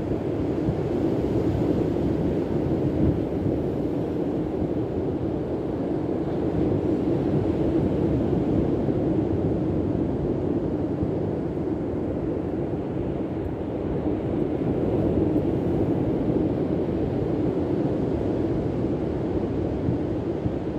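Wind buffeting the microphone at the seashore: a steady low rumble, likely mixed with surf.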